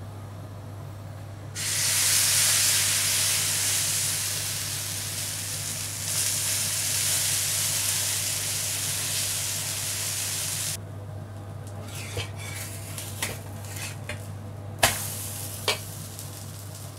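Vegetable batter sizzling on a hot, oiled tawa. The sizzle starts suddenly about a second and a half in and stops abruptly about ten seconds in, followed by a few light clicks and knocks.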